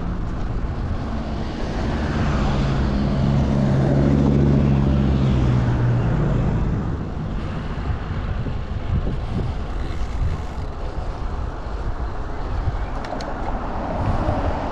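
Wind noise on the microphone of a moving road bike, with a motor vehicle passing close by. Its engine note builds, is loudest about four seconds in and fades by about six seconds.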